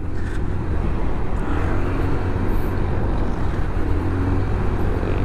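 Motor scooter engine running steadily at cruising speed, with road and wind noise.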